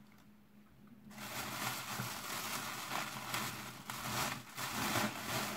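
Clear plastic snack wrapper being crinkled and crumpled by hand, a dense crackling that starts about a second in and keeps going.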